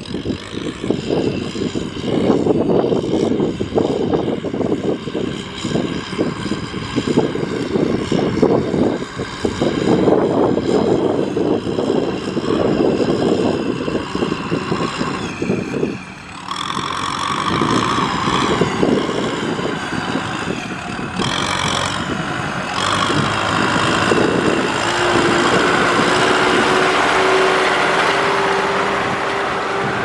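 Farm tractor's diesel engine running under load as the tractor drives through a wet, harvested rice field, with a break in the sound about halfway through. A steady hum joins in for the last few seconds.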